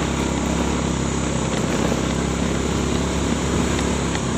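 Motorcycle engine running at an even, steady pitch while riding along, under a steady rush of wind and road noise.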